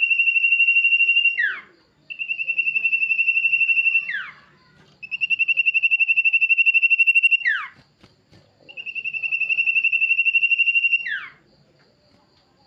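Male sirtu bird calling: four long, high, rapidly pulsed whistled trills, each held steady for about two seconds and ending in a quick falling slur, with short pauses between.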